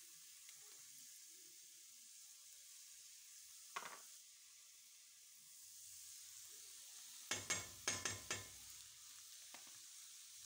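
Mushrooms frying in butter in a stainless steel pan, a faint steady sizzle. A single sharp tap about four seconds in, then a quick run of scrapes and knocks about seven to eight seconds in as chopped garlic is scraped from a plastic cutting board into the pan and stirred in with a spatula.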